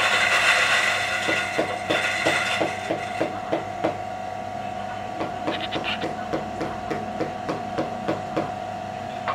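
DF64 coffee grinder with SSP cast burrs running. The grinding noise thins out over the first second or so as the last beans pass through, and the motor then runs on with a steady hum. Over it come regular taps, about three a second.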